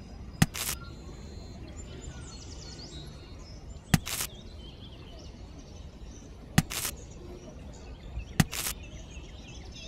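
Grapes being handled and set into a small woven bamboo basket: four sharp clicks, each followed a moment later by a softer one, spaced a few seconds apart.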